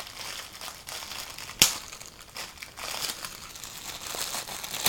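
Crinkling and rustling of packaging as a pair of gloves is handled, with one sharp snap about one and a half seconds in.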